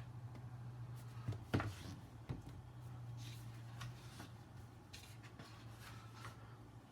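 Faint paper rustles and a few light taps as a heavy hardcover book and its paper inserts are handled, over a steady low hum.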